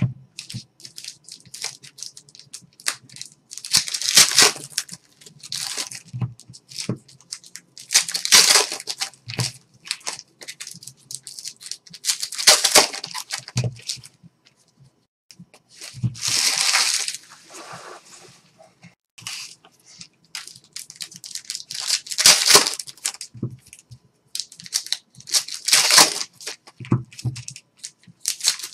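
Trading card pack wrappers being torn open and crinkled, with cards handled between, in bursts every few seconds.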